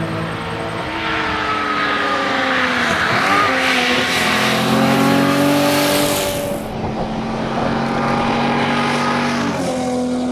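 1961 Ford Zephyr's straight-six engine driven hard at rally pace. Its pitch dips briefly about three seconds in, then holds steady, with a loud hiss of noise over it between about two and six seconds in.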